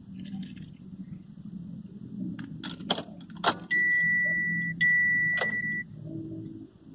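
Car key clicking and jingling in the ignition of a Chevrolet Captiva as it is turned and pulled. About halfway through, the car's electronic warning chime sounds as two long steady high beeps, one after the other.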